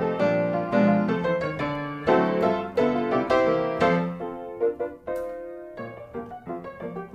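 Background piano music, a run of struck notes in a light tune.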